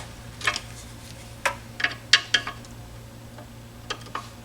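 Sharp metallic clicks and clinks of hand tools on the flywheel bolts at the back of the engine, about eight at irregular spacing, the loudest around two seconds in.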